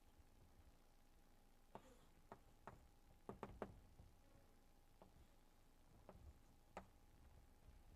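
Near silence: room tone with a handful of faint, sharp taps and knocks, a quick cluster a couple of seconds in and one more near the end.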